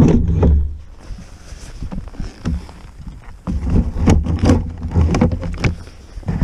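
Loud rustling and bumping close to the microphone, with low rumbling, as a work jacket brushes and knocks against the body-worn camera.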